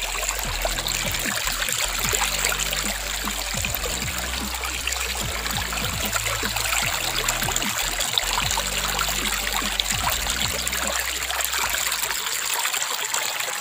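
Steady running water like a trickling stream, with held low electronic music notes and repeated deep falling bass hits underneath.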